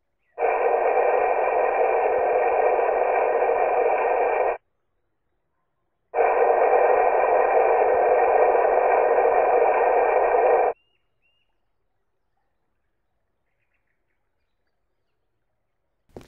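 A recorded water-leak noise played back twice from the Sewerin Aquaphon A200 ground microphone's audio player: a steady hiss of about four seconds each time, with no high treble, and a pause of about a second and a half between the two plays.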